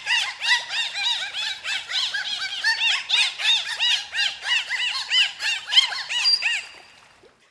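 A rapid run of high squealing animal calls, each one a short rise and fall in pitch, several a second, fading out near the end.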